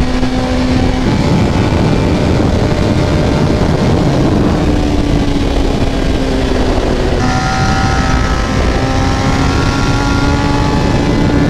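1993 Honda CBR900RR's inline-four engine running at highway cruising speed, with wind rushing past. About seven seconds in, its note gets louder as the throttle is opened.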